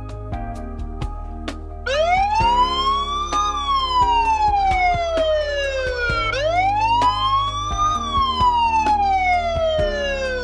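Security camera's built-in alarm siren going off, triggered by the door sensor while the system is armed. It starts about two seconds in as a loud wail that rises quickly and falls slowly, repeating about twice.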